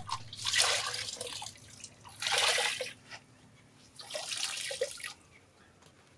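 A wet hank of thread being plunged and squeezed by hand in a basin of dark mangrove dye water, splashing and sloshing in three rounds, then quiet near the end.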